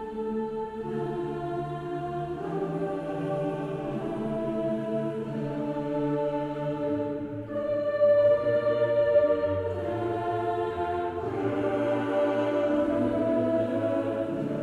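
Background choral music: voices holding slow, sustained chords that change every second or two, swelling slightly about eight seconds in. No machinery or demolition sound stands out over it.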